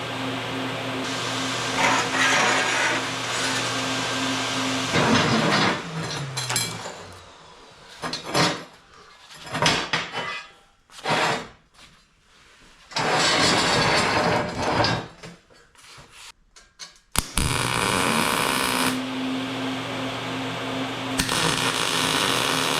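An electric power tool motor runs at a steady speed, is let go about five seconds in and spins down with falling pitch. It is then blipped in short bursts, runs hard for a couple of seconds in the middle, and runs steadily again for the last several seconds.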